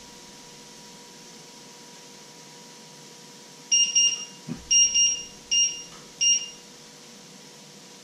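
A run of short, high electronic appliance beeps, about seven in all, some in quick pairs, starting about halfway through and lasting about three seconds. A dull knock falls among them.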